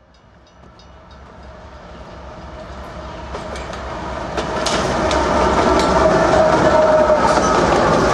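Diesel freight train approaching: the lead locomotives, a lash-up of GE and EMD road units, rumble with wheel and rail clatter. The sound grows steadily louder over the first five seconds, then stays loud.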